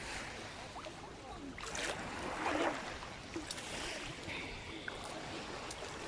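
Sea water sloshing and splashing around a person wading, with a few louder splashes about two seconds in.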